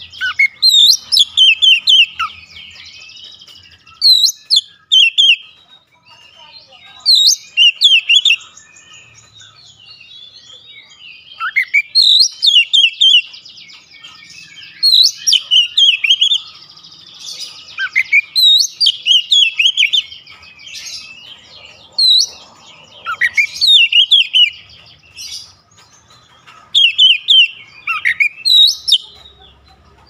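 Oriental magpie-robin (kacer) singing: loud phrases of sharp, rapid notes every few seconds, with softer chattering in between.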